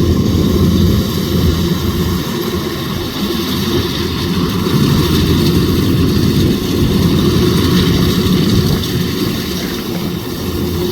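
Kubota DC105X combine harvester's diesel engine running steadily under load while harvesting rice, with the machine's threshing gear churning along with it.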